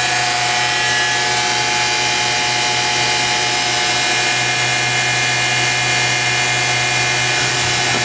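Newly installed spindle of a Fadal 4020 CNC vertical machining center running steadily at 7,000 RPM, a constant whine made of several held tones.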